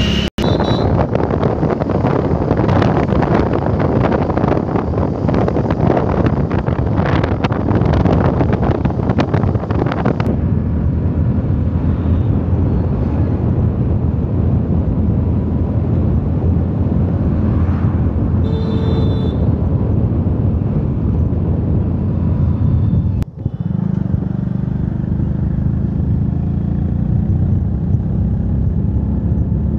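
Wind rushing over the microphone together with engine and road noise from a moving motorbike. The buffeting is heavy and ragged at first and eases after about ten seconds, with a brief dip in the sound about two-thirds of the way in.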